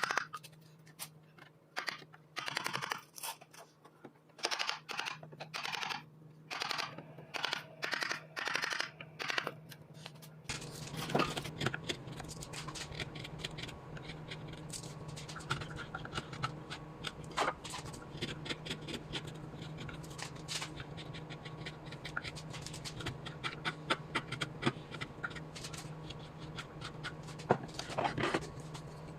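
Wood being scraped or rasped by hand in short, even strokes, roughly one every two-thirds of a second. About ten seconds in, it gives way to a denser, continuous scratching with small clicks over a steady low hum.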